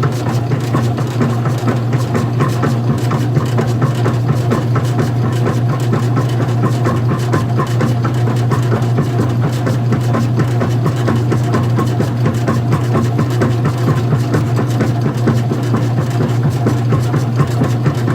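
Old-style front-loading washing machine running mid-cycle: a steady motor and drum hum with a fast, continuous rattle over it, unchanging throughout.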